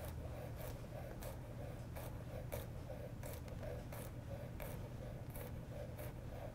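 Chef's knife dicing carrot julienne into brunoise on a wooden cutting board: evenly spaced cuts through the carrot into the board, about one and a half a second.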